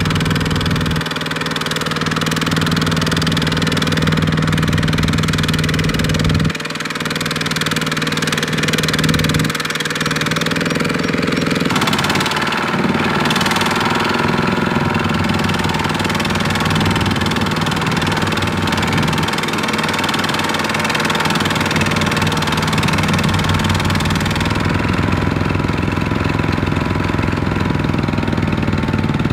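Single-cylinder Kubota diesel engine of a two-wheel walking tractor running steadily with a fast, even firing beat, working under load as it pulls a trailer of rice sacks through mud. The engine's tone shifts abruptly about twelve seconds in.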